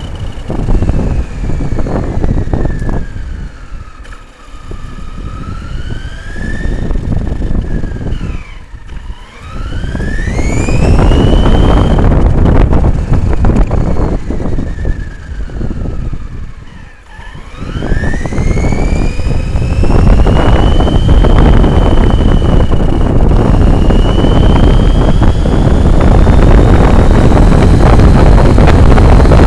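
Upgraded electric motor of a Himoto RC car whining as it drives, over a loud rumble of tyres and wind. The whine slides down as the car slows and climbs again as it speeds up, three times, then holds high near the end.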